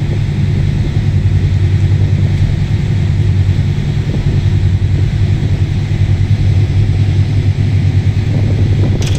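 Ferry's engines running with a steady low drone, mixed with some wind noise.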